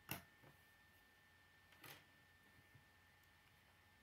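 Plastic K'nex pieces clicking as hands handle them: a sharp click just after the start, a softer one half a second later, and another click about two seconds in, with quiet between.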